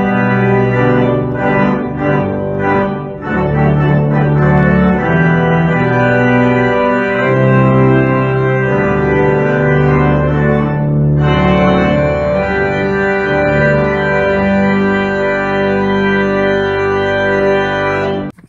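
Church organ playing a hymn, with sustained chords on the manuals over a deep pedal bass that change every second or two. The music cuts off suddenly at the very end.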